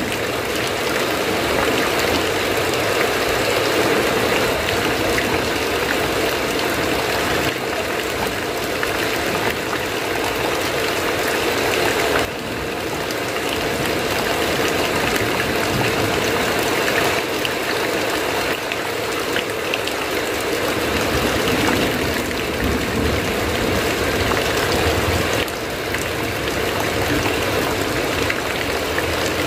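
Heavy rain falling steadily on a roof, a dense even hiss that eases slightly for a moment about twelve seconds in and again near the end.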